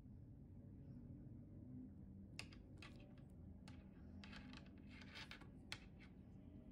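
Faint clicks and soft scratchy handling sounds of a Garmin Descent MK2S dive watch as its side buttons are pressed to scroll the activity menu, a cluster of them starting about two seconds in, over near-silent room tone.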